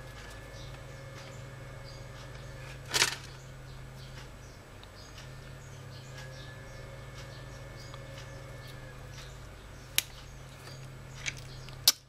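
Handling of a circuit board and a soldering iron while desoldering a swollen capacitor: a steady low hum, a short scraping rustle about three seconds in, and a few sharp clicks near the end.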